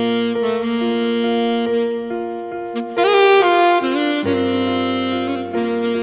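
Background music: a slow instrumental with a saxophone lead over held chords, one note sliding upward about three seconds in.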